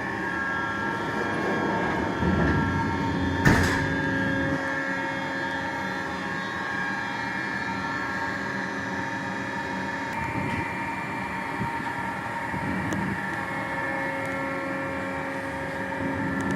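Gildemeister NEF CT40 CNC lathe running: a steady machine hum with several high, steady whining tones, and one sharp knock about three and a half seconds in.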